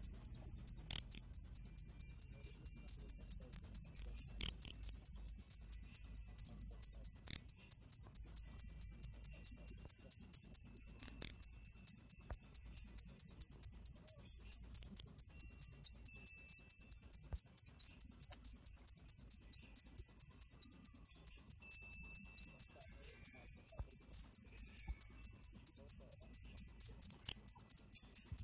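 Cricket chirping loudly and steadily, a high-pitched chirp repeated about four times a second.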